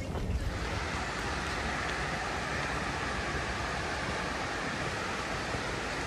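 Steady rushing of running water, coming in abruptly about half a second in and holding even.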